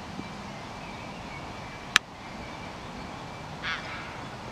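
Steady open-air background noise at a cricket ground, with a single sharp crack about two seconds in and a short rasping call near the end.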